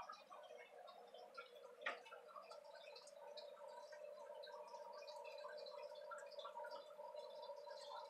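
Near-silent room tone: a faint steady hum with scattered light ticks, and one sharper click about two seconds in.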